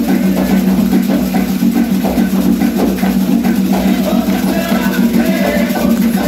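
Candomblé ceremonial music: steady drumming and rattling percussion with hand-clapping and voices chanting along, running without a break.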